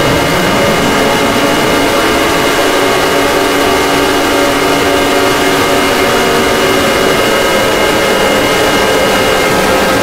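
Emergency Alert System (EAS) alarm sounding loud and unbroken: several steady high tones held together over a noisy drone, with low tones wavering up and down underneath.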